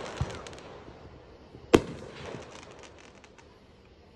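Aerial fireworks bursting: crackles trail off, then one sharp bang about two seconds in, followed by a spatter of crackling.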